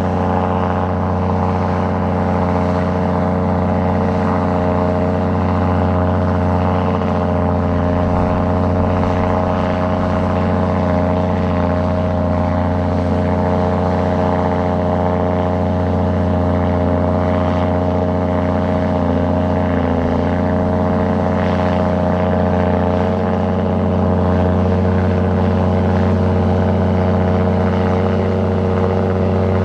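Heavy earthmoving machine's diesel engine running steadily, its pitch dipping briefly about twenty seconds in.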